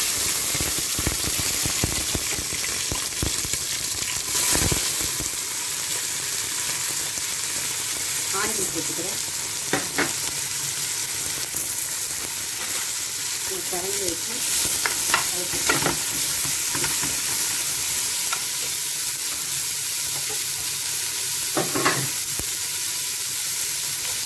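Chopped onions sizzling in hot oil in a pan, stirred with a spoon that scrapes and knocks against the pan now and then. This is the onions being sautéed as the base of a curry.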